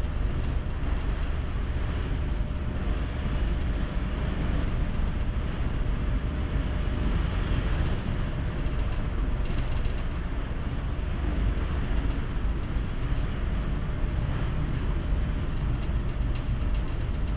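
Steady deep rumble and rushing noise aboard a Great Lakes freighter underway in heavy seas, with gusty wind buffeting the microphone and a faint steady hum.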